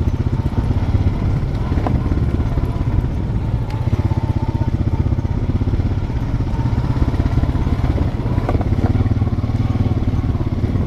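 ATV (quad) engine running steadily at low speed while a dog team pulls it along a trail, with a couple of brief knocks.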